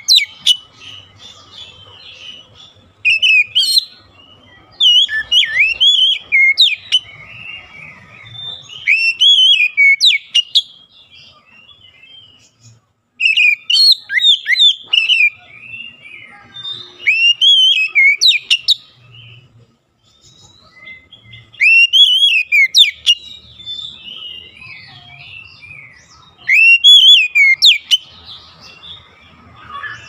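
Oriental magpie-robin singing: loud phrases of rising and falling whistled notes every few seconds, with softer chattering notes in between.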